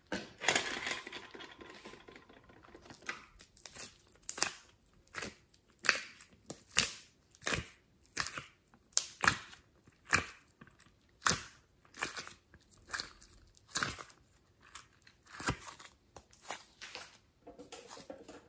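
Soft slime being pushed out of a plastic heart-shaped mold and squeezed by hand, with a noisy squelch about a second in, then sharp, wet pops about once a second.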